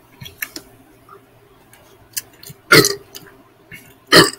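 A man belching after chugging a drink: a few faint clicks, then a loud short burp a little under three seconds in and a shorter one near the end.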